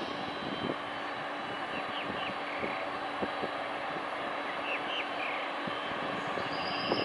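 Four jet engines of a Boeing 747-400 running steadily as the jumbo jet rolls slowly along the runway, an even rushing noise with a low steady hum.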